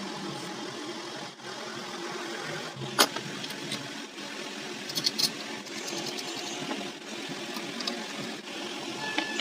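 A small electric motor running steadily, with a sharp click about three seconds in and a few quick clicks a couple of seconds later.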